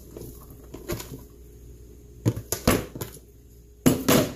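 Rice mixture tipped out of a plastic bowl into a springform pan: scraping and handling noise with several sharp knocks. One knock comes about a second in, a pair comes a little after two seconds, and the loudest cluster is near the end.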